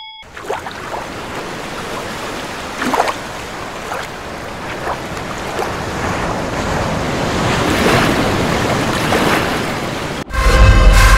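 Ocean waves washing as a steady rush, with a few swells. About ten seconds in, loud music with heavy bass cuts in suddenly.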